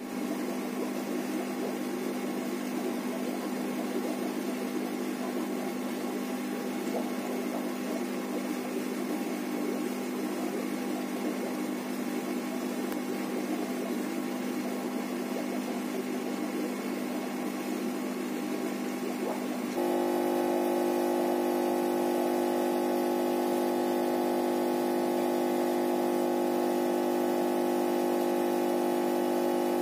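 A steady mechanical hum with several held tones. It jumps abruptly louder and steadier about two-thirds of the way in.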